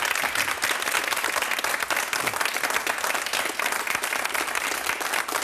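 Studio audience applauding, many people clapping steadily.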